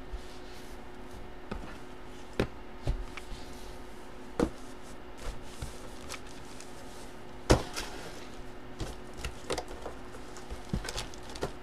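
Hands handling a bagged baseball jersey and a cardboard box on a table: light rustling with a few sharp knocks, the loudest about halfway through, over a faint steady hum.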